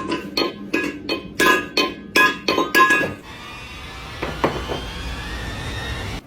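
A quick series of sharp clinks, about eight in the first three seconds, each with a short ringing tone like hard glass or metal being struck, followed by a few fainter knocks.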